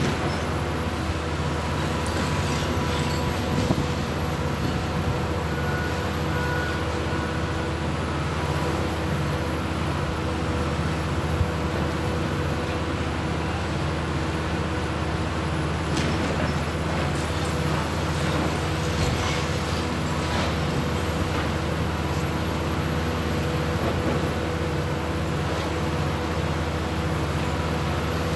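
Hitachi Zaxis 350 high-reach demolition excavator's diesel engine and hydraulics running steadily, with a constant whine. A few sharp cracks and knocks come through as its Trevibenne crusher jaw breaks concrete from the building.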